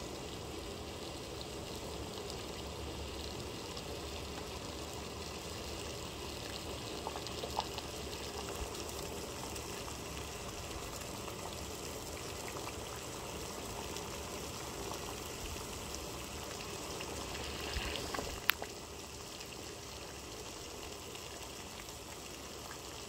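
Water at a rolling boil in a stainless steel saucepan, bubbling steadily. A few small clicks come through, and one sharp click about eighteen seconds in.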